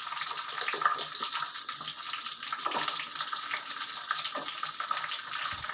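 Peeled garlic cloves and chopped herbs sizzling in hot sesame oil in a kadai: a steady frying hiss with scattered crackles and ticks.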